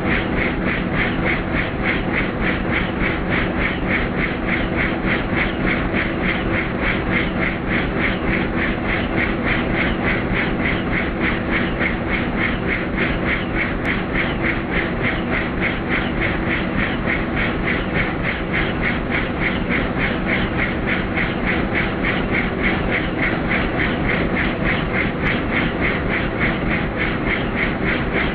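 Helicopter in steady flight: the rotor blades chop in a fast, even pulse over a constant engine drone.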